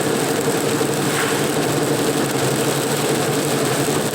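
Steady drone of a car engine and road noise heard from inside the moving car, with a constant low hum.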